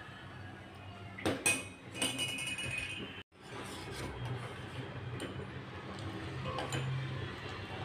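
Steel ladle clinking and scraping against a stainless steel saucepan while stirring thickened milk. There are a few sharp clinks and a short metallic ring about two seconds in, then lighter clinks later.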